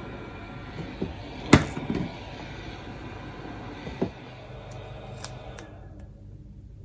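Hot-air heat gun blowing steadily on heat-shrink over a soldered coax joint, with a few sharp knocks, the loudest about a second and a half in. The blowing stops about six seconds in.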